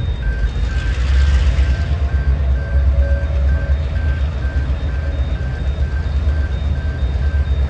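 Heavy low rumble with a rapid electronic beep repeating about three to four times a second throughout.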